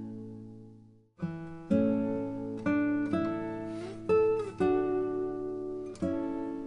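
Background music on acoustic guitar, plucked and strummed. It fades away about a second in and starts again a moment later.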